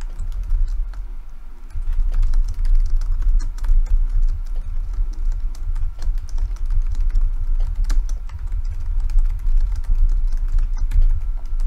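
Rapid typing on a computer keyboard: a continuous run of key clicks over a dull low thudding from the strokes.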